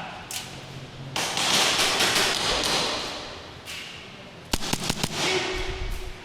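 Airsoft gun firing a quick string of sharp cracks about four and a half seconds in, after a stretch of rustling noise.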